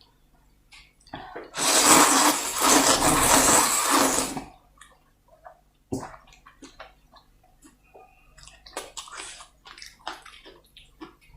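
Noodle soup slurped loudly for about three seconds, followed by small wet clicks and smacks of chewing.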